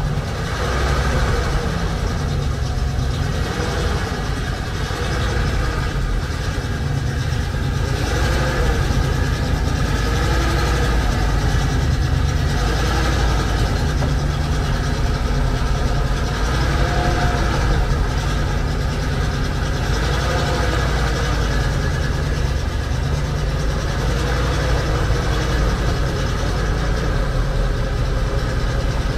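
Ural-375D truck's ZIL-375 V8 petrol engine idling steadily.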